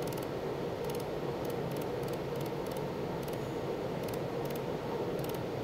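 Pulsed laser welder at work on a 420 stainless steel mold edge: faint, very high ticks at irregular intervals, one per laser pulse, over the welding station's steady machine hum.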